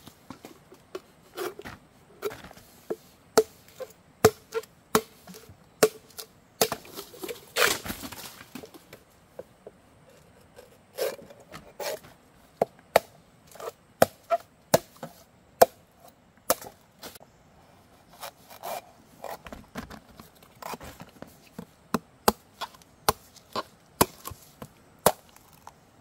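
Chopping: sharp single knocks at an uneven pace, roughly one a second, with short pauses between runs.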